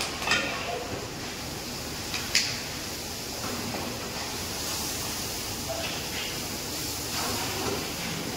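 A pan of gravy cooking on a gas stove: a steady hiss while a metal ladle stirs it, with two sharp metal clicks, one right at the start and one about two seconds in.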